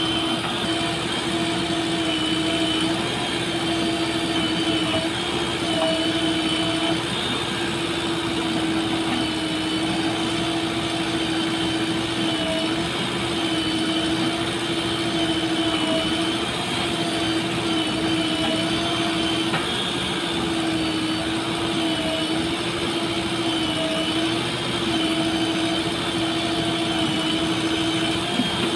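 Diesel engines of a JCB 3DX backhoe loader and a Swaraj 855 FE tractor running steadily while the backhoe digs and loads. The hum holds one pitch that wavers slightly.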